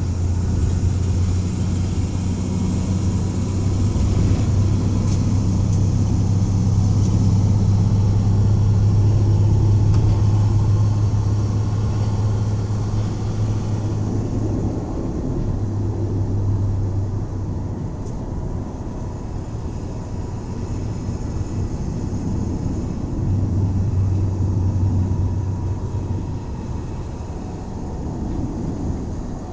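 1984 Dodge van driving: a steady low engine drone over road noise, swelling and easing a few times as the throttle changes, strongest in the first half and dropping back for several seconds past the middle.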